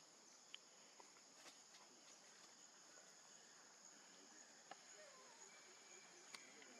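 Near silence, with faint steady high-pitched insect chirring in the background and a few faint ticks.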